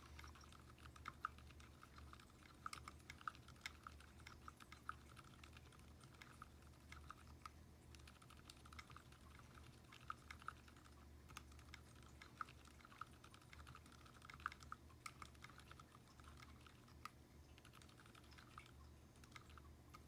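Continuous fast typing on a 60% mechanical keyboard with Cherry MX linear switches: quiet, dense keystroke clacks, several a second, with no tactile click.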